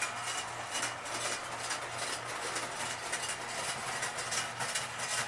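Tinplate toy train, the Pride Lines reissue of the Lionel Mickey Mouse circus train, running slowly around its track. Its electric motor hums steadily while the wheels rattle along the rails.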